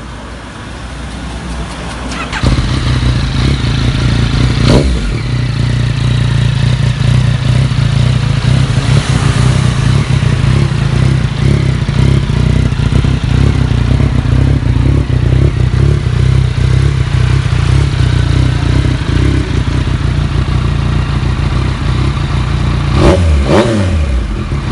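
Yamaha MT-09's inline-three engine through a full-system aftermarket exhaust starting up. It catches about two and a half seconds in and settles into a loud, steady idle with a quick blip of the throttle soon after. Near the end come two short revs that rise and fall in pitch.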